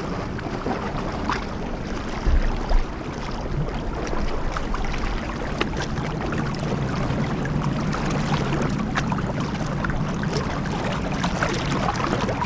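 A boat engine running steadily, a low hum under a constant rush of wind and water.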